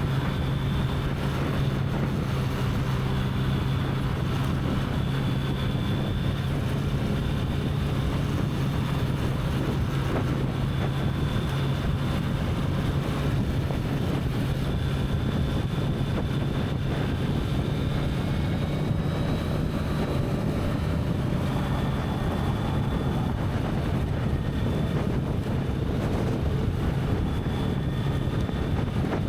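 Kawasaki Z900's inline-four with its stock exhaust, running at a steady cruise, its engine note holding one pitch, with wind rushing over the microphone.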